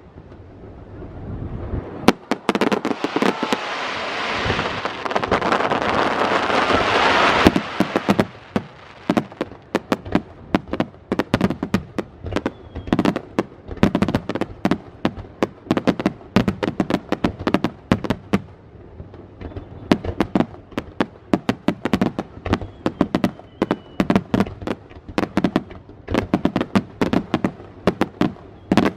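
Fireworks display: a dense hissing crackle swells for several seconds and cuts off suddenly about seven seconds in. Rapid, closely spaced bangs of bursting shells follow through to the end.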